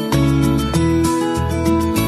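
Background music led by a plucked guitar, its notes changing in a steady rhythm.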